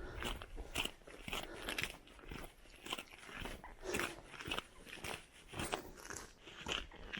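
Footsteps crunching at a steady walking pace, about two steps a second.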